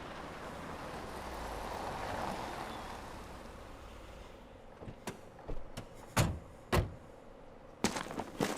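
A soft rushing ambience swells and fades, then footsteps start about five seconds in, a sharp step roughly every half second.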